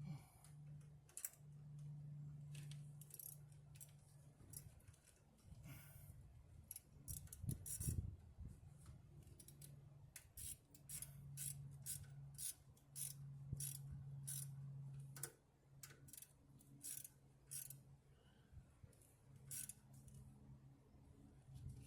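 Irregular sharp metallic clicks and ticks of hand tools working on the truck's cooling system, over a steady low hum.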